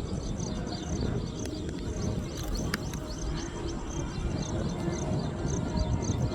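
Small birds chirping rapidly and continuously, short high calls several times a second, over a steady low rumbling noise.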